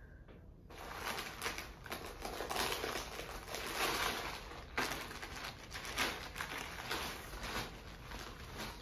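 Rustling and crinkling of a chador, a long cloth wrap, being gathered up, lifted and shaken open. It starts about a second in.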